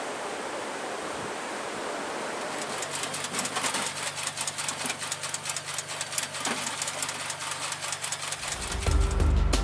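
Wind and sea noise, then from about three seconds in a rapid, irregular metallic clicking and clatter of ammunition rounds being handled into a Phalanx CIWS gun's feed, over a steady low hum. Music comes in near the end.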